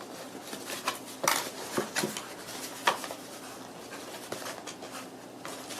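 Cardboard box and packaging being opened and handled: scattered light rustles, scrapes and taps, several in the first three seconds.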